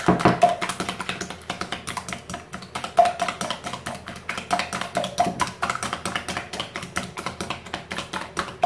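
A whisk beating egg yolks in a glass bowl: quick, even clicking strokes of the wires against the glass, several a second.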